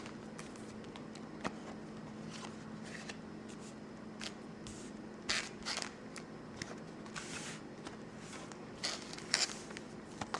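Paper trading cards being handled: scattered soft slides and light taps of cards against each other, a few more in the second half, over a faint steady hum.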